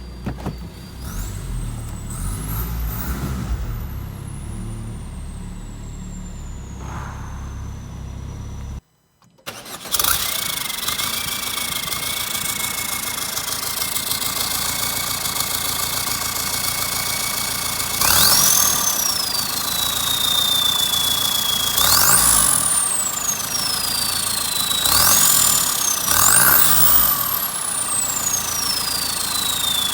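Citroën Nemo HDi diesel's turbocharger whistling through an open exhaust. Over the engine's rumble a high whistle rises and falls in the first few seconds. After a brief break the engine idles with a steady whistle, and four throttle blips each send the whistle shooting up sharply before it winds down slowly as the turbo spins down.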